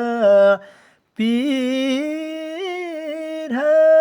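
A single voice singing a Nepali song unaccompanied, holding long drawn-out notes with a slight waver. The voice breaks off briefly for a breath about a second in, then carries on.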